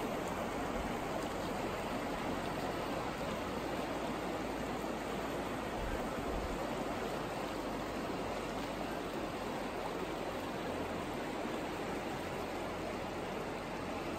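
Shallow river rushing steadily over a rocky bed, riffling past the bank.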